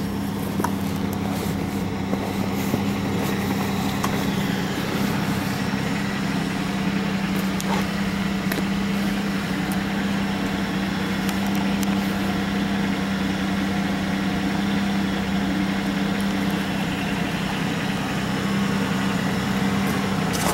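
A steady mechanical hum, one low tone that holds unchanged, with a few faint clicks.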